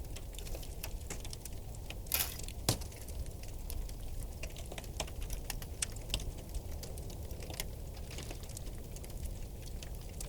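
River ice cracking and ticking: many small, irregular sharp cracks coming from all around, with a louder crack about two seconds in and another just after.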